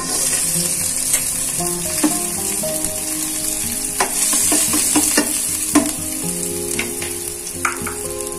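Chopped onions sizzling in hot oil in a stainless steel kadai, stirred with a spoon that clinks and scrapes against the pan several times.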